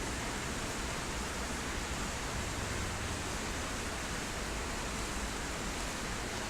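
Steady rushing noise with no distinct knocks, clicks or tones.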